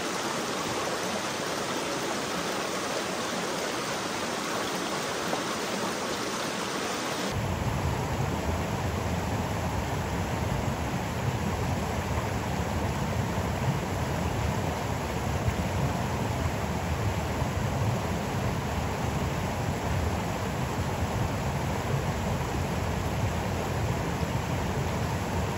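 Shallow mountain stream running over rocks: a steady rush of water that turns fuller and deeper about seven seconds in.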